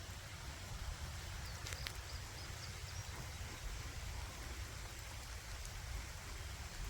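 Light drizzle falling steadily, an even hiss of rain, with a couple of faint ticks about two seconds in.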